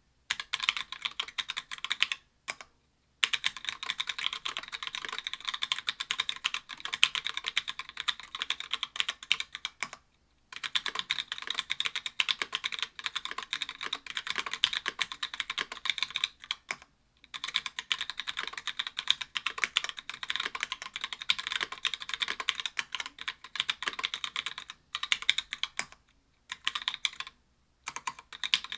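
Mechanical keyboard with stock Gateron Yellow linear switches (60 g) in an aluminium plate, under GMK keycaps, being typed on quickly and steadily: a dense run of keystroke clacks, broken by a few short pauses of under a second.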